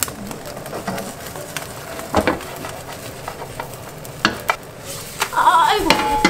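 Beaten egg sizzling as a thin omelette fries in a non-stick frying pan, with a spatula knocking and scraping against the pan a few times as it lifts the egg sheet. A voice comes in near the end.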